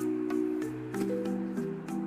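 Background music: held chords that change every half-second or so over a light, steady clicking beat.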